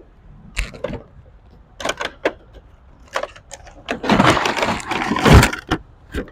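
A toy vending machine set's box and packaging being opened and handled. A few separate clicks and knocks come first, then about two seconds of loud rustling and crackling of packaging.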